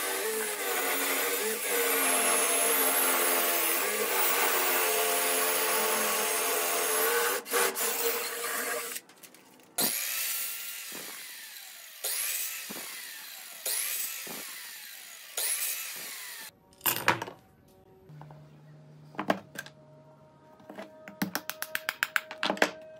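A power drill spinning a wooden rod through a hole in a clamped wooden block, shaving it round, with a steady wavering whir. Then a miter saw cuts the rods four times, each cut followed by the blade's falling whine as it spins down. Near the end, a wooden mallet taps dowels into wooden blocks, ending in a quick run of taps.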